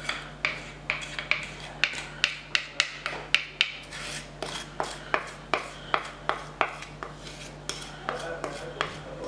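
A spatula scraping thick chocolate ice-cream mixture out of a mixing bowl into a plastic tub: quick scrapes and sharp knocks against the bowl, about two or three a second.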